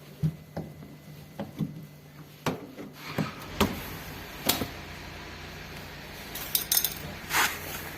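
Scattered clicks, knocks and short metallic rattles as the circlip holding the washing machine's door parts is worked off with hand and tool.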